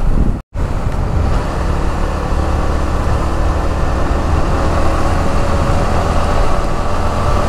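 Motorcycle engine running steadily while riding, with a low rumble and wind noise on the microphone. The sound drops out for a moment about half a second in.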